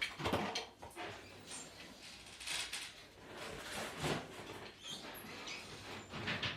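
Rustling and light knocks of animatronic parts and cord being handled, in short irregular bursts.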